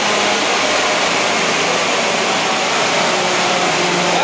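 Steady loud rush of blowing air from a wind-tunnel fan, with a faint steady hum underneath.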